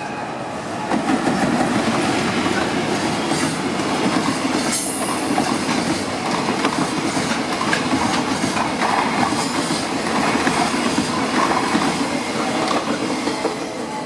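Freight train of container flat wagons hauled by a JR Freight EF210 electric locomotive rolling past at close range: a steady, loud rumble of steel wheels on the rails with rhythmic clatter, swelling about a second in as the train comes level. A brief high wheel squeal cuts through about five seconds in.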